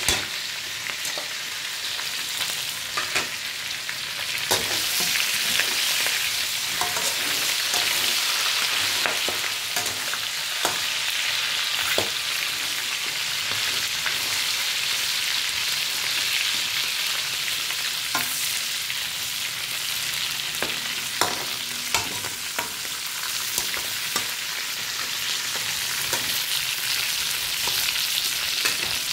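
Crab pieces sizzling in hot oil in a wok, with a spatula scraping and knocking against the pan now and then as they are stirred.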